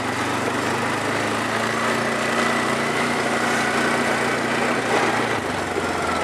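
Small ATV engine running at low, steady revs, its pitch dropping a step about five seconds in.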